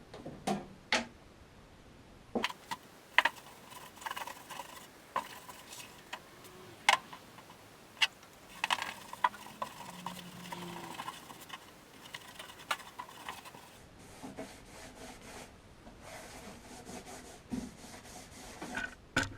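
Polyester resin thickened with Q-cell filler being stirred in a mixing pot: scraping with scattered sharp clicks and knocks, busiest from about eight to eleven seconds in.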